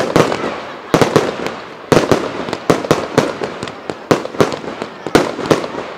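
Aerial fireworks bursting overhead: a rapid, uneven string of bangs, about two or three a second, with crackling stars between them.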